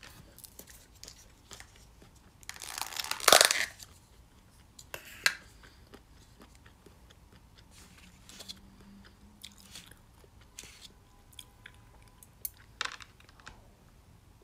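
Chewing and biting food, with scattered small clicks and a louder crunching burst about three seconds in.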